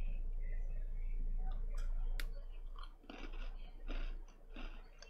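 Close-up chewing of a crunchy Oreo sandwich cookie, with irregular crunches, clearest near the end, over a steady low hum.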